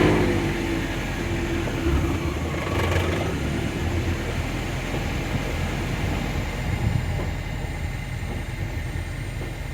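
2009 Nissan Altima's engine idling steadily, just after being started.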